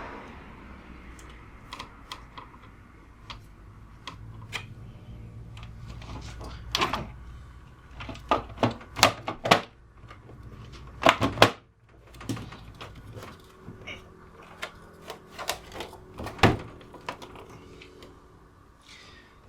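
Clicks and knocks of a plastic UPS casing and its screws being handled and fitted together during reassembly, in irregular clusters over a faint low hum.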